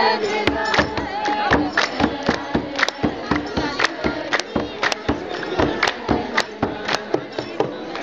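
A crowd of worshippers singing an Ethiopian Orthodox hymn together, with sharp hand claps keeping time about two to three a second.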